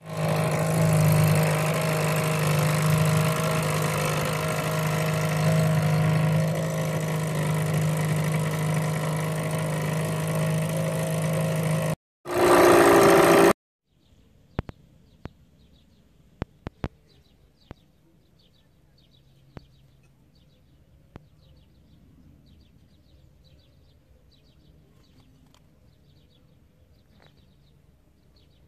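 A small boat's outboard motor running steadily, heard from on board. About twelve seconds in it cuts off, and after a brief loud burst a small bird chirps over and over in short high notes, with a few sharp clicks.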